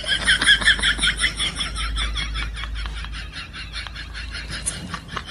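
A goat eating leaves greedily: quick, rhythmic crunching of fresh leaves, about five or six bites a second, getting gradually quieter.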